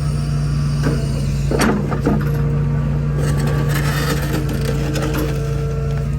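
Mini excavator's diesel engine running steadily, with a few sharp knocks and clacks over the top.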